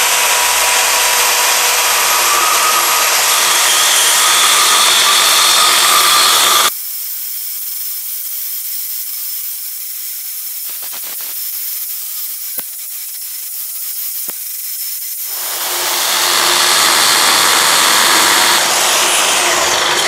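ES Industry DC1006 dry core drill running at high speed, its 65 mm diamond dry core bit grinding into a concrete curb stone. About seven seconds in, the sound suddenly turns thinner and quieter, with a few clicks. It returns full about six seconds later.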